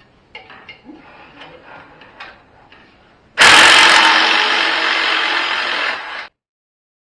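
Light clinks and knocks of hand tools being handled, then a power tool bursts on loudly about three seconds in and runs for about three seconds before cutting off abruptly.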